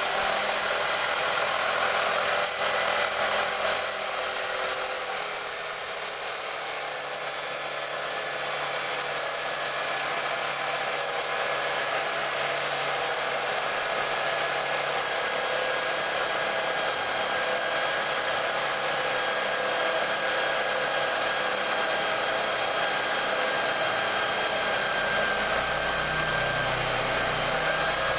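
Electric hand drill powering a homemade sanding machine, running steadily with a high motor whine as it sands a wooden board.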